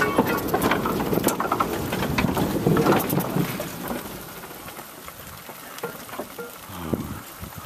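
Replica of the 1825 steam locomotive Locomotion running, with clattering and hissing from its engine and motion. It is loudest for the first three seconds, then quieter.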